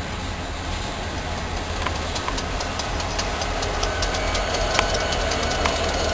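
Freight train passing close by: steel wheels clicking over rail joints from about two seconds in, over the low rumble of a diesel locomotive's engine that grows louder as the unit draws alongside.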